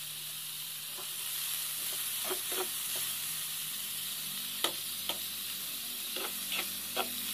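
Sliced bitter gourd sizzling steadily in a frying pan over a low gas flame. A spatula stirs it, clacking against the pan several times from about two seconds in.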